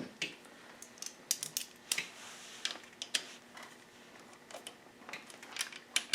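Hand tools working on a dirt-bike engine during teardown: a series of irregular sharp metallic clicks and taps, about a dozen spread unevenly.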